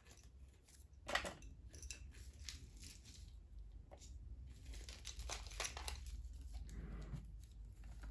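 Faint handling noises of small craft items: scattered light clicks and brief crinkling rustles, like plastic packaging and small tools being moved about.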